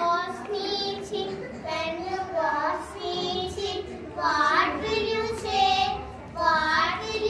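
Young children singing a song about good manners together, in phrases of held notes that rise and fall.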